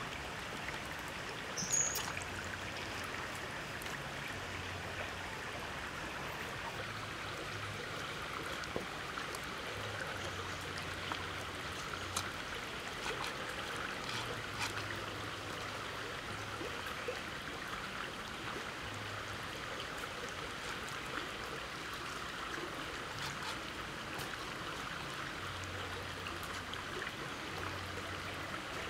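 A small forest stream babbling steadily, with a few light taps and clicks from bamboo skewers being worked through a raw chicken, the sharpest about two seconds in.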